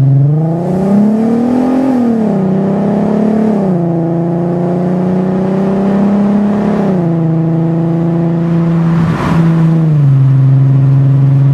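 VW Golf R32's 3.2-litre VR6 engine through a custom 3-inch exhaust with a hotdog resonator, heard from inside the cabin with the windows open. The engine note rises in pitch under acceleration for about two seconds, falls back, then steps down in pitch a few times and holds steady between steps while cruising.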